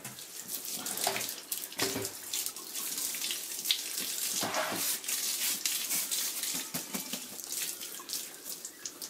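Water running and splashing unevenly as the stainless-steel malt pipe of a Speidel Braumeister brewing kettle is rinsed out.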